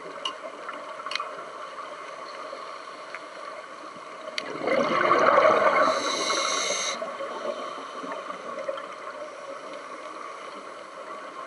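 Scuba diver exhaling through a regulator underwater: a rushing, gurgling burst of bubbles from about four and a half to seven seconds in, over a steady muffled underwater background with a few faint clicks.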